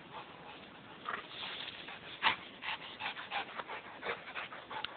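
Rottweiler panting quickly, about four or five short breaths a second, worn out from play.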